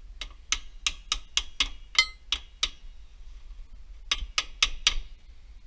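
Sharp metallic clicks from a hand tool working on metal suspension parts, about four a second: a run of about nine, a pause of over a second, then four more.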